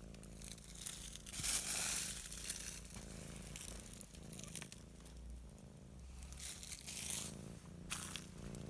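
Domestic cat purring steadily, with bouts of crinkly rustling over it. The loudest rustling comes about two seconds in, with more later.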